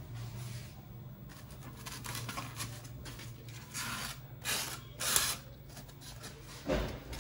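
Expanded polystyrene foam rubbing and scraping as a cut-out piece is slid out of the foam block, in a few short scratchy bursts a few seconds in, the loudest about five seconds in, then a low knock near the end. A steady low hum runs underneath.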